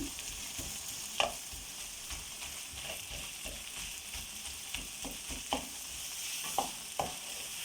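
Black chickpeas in an onion-tomato masala sizzling in a frying pan as they cook down dry, with a spoon stirring and knocking against the pan a few separate times.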